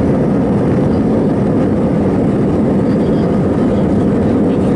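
Steady, loud cabin noise inside a passenger jet moving along a runway, mostly deep engine noise.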